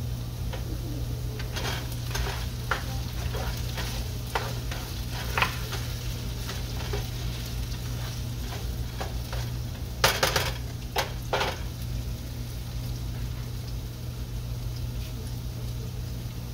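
Diced potatoes and sliced red onion sizzling as they fry in a skillet, with a spatula stirring them and clicking against the pan. There is a louder flurry of spatula knocks and scrapes about ten seconds in.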